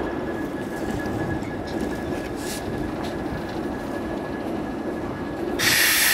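ALCO diesel switcher locomotive rumbling at low speed as it moves a flatcar, with steel wheels on the rail and a thin steady whine. About five and a half seconds in, a loud high-pitched squeal suddenly sets in.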